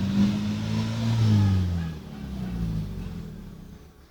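An engine revs up to a steady high pitch, holds it for a second or so, then eases off and fades away.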